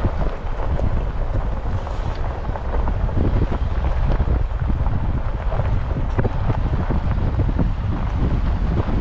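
Wind buffeting the microphone: a heavy, gusting low rumble that swells and eases.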